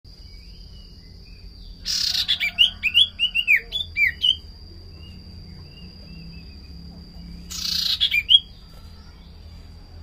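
Caged common iora (sirtu, cipoh) singing: about two seconds in, a harsh rasp followed by a quick run of short, curved chirping notes lasting about two seconds, then a second, shorter rasp-and-chirp bout near the end.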